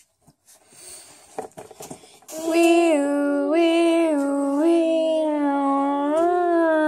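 A girl's voice imitating a police siren, a two-tone wee-oo stepping up and down about once a second, starting a couple of seconds in. Before it, a few faint taps.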